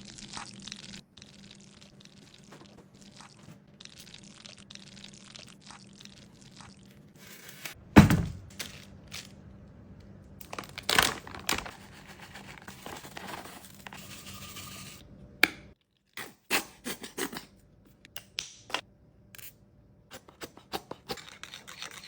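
Kitchen food-prep handling sounds: scraping and crinkling, a sharp knock about eight seconds in, then a series of short taps and clicks broken by abrupt cuts.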